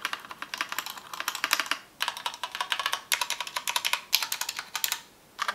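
Stabilized keys of a Keychron K2 mechanical keyboard with Gateron Red linear switches being pressed rapidly over and over, in several quick bursts of clacks separated by short pauses.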